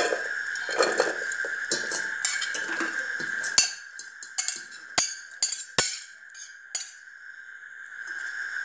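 Cut raw jackfruit pieces tipped into a stainless steel pot, clattering against the metal, with a few sharp knocks on the pot in the middle before it goes quieter. A steady high tone runs underneath.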